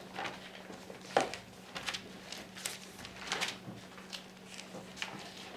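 Thin Bible pages being leafed through by hand: a string of irregular papery rustles and flicks, the sharpest about a second in.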